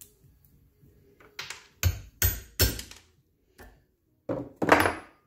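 About seven sharp metal knocks in quick succession, a hammer tapping on the riveted metal plate of a Triumph TR7 wiper motor gear held in a vise, knocking out drilled rivets.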